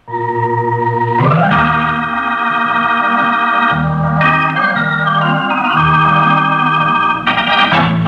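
Organ music bridge: held chords that shift several times, leading from the commercial back into the radio drama.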